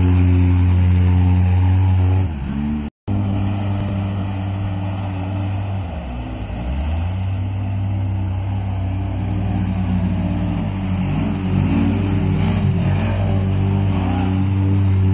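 Off-road mud-racing vehicle's engine running hard at a steady pitch. The revs sag briefly about two seconds in and again around six seconds, then waver near the end. A short silent dropout about three seconds in.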